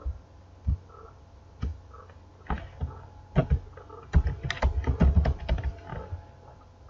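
Computer keyboard being typed on: a few separate clicks, then a quick run of keystrokes starting about three seconds in, as a word is deleted and retyped.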